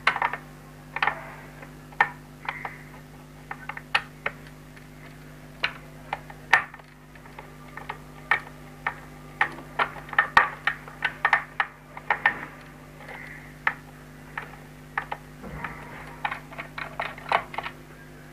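Small screwdriver unscrewing the screws from a plastic extension box's back cover: irregular clicks and ticks of the tip, screws and fingers against the plastic casing, over a steady low hum.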